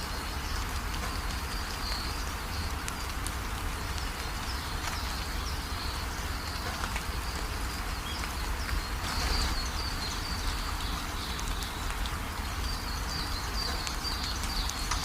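Steady rain falling, with individual drops ticking close by and repeated short high chirps over it.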